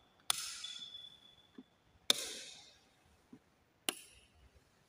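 Plastic rocker light switches being flipped by hand: three sharp clicks about two seconds apart, each with a short fading hiss after it, as the one lamp is switched on and off from different switches. A faint high whine is heard between the first two clicks.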